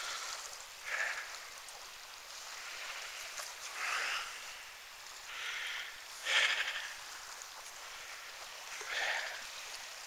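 Quiet outdoor ambience with a few soft, short, hissy noises from the person walking and filming, one to three seconds apart, the loudest about six seconds in.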